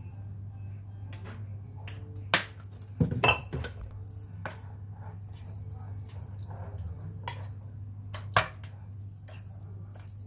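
Kitchen utensils knocking and clinking against a bowl and containers while a yogurt-and-cucumber sauce is mixed. There are a few sharp knocks, with a cluster about three seconds in and another near the end, over a steady low hum.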